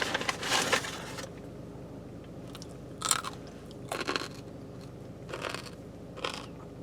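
A person biting into a raw apple and chewing it, with crisp crunches: a quick run of them in the first second or so, then single crunches every second or so.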